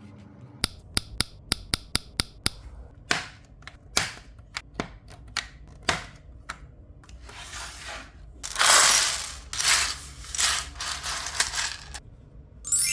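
Plastic building bricks being handled and clicked together: a quick run of sharp clicks in the first few seconds, scattered clicks after, then longer rustling and rattling of loose pieces from about two-thirds of the way in.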